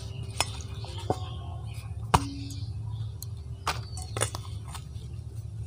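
A stainless steel bowl knocking and clinking as a ball of dough is uncovered and pressed in it. There are a handful of separate knocks, the loudest about two seconds in with a brief metallic ring, over a low steady hum.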